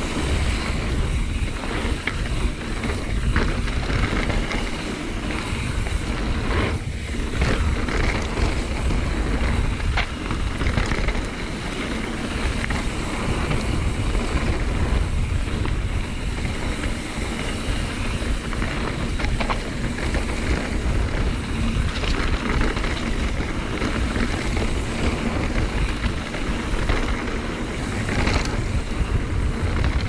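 Wind rushing over the microphone of a mountain bike descending a dirt flow trail at speed, with the tyres rolling on hardpacked dirt underneath. Brief clicks and knocks from the bike are scattered through it.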